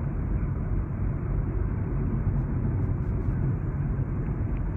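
Steady road and tyre noise inside a moving car's cabin at highway speed, deep in tone and even throughout.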